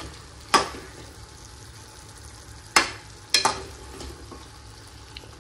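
A spoon stirring cooked bottle-gourd bhaji in a pan over a low steady sizzle, with four sharp knocks of the spoon against the pan: one about half a second in and three close together around three seconds in.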